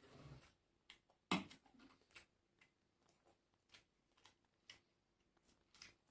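Faint close-up eating sounds from someone chewing food: scattered small wet mouth clicks and smacks. A brief rustle or crunch comes at the start and a sharper click about a second and a half in.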